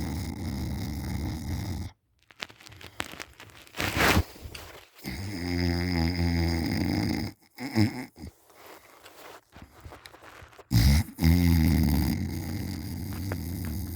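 A deeply asleep person snoring: three long, low-pitched snores about five seconds apart, with shorter, quieter sounds between them.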